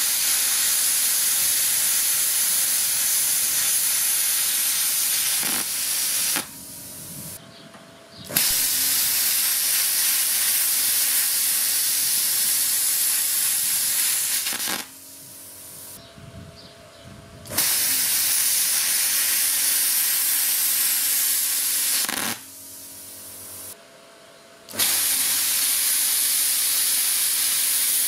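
Parkside Performance PPSK 40 A2 plasma cutter slicing steel at 35 amps, its arc and air jet making a loud steady hiss. The hiss comes in four stretches several seconds long, broken by short pauses about six, fifteen and twenty-two seconds in, when only a quieter hum from the machine remains.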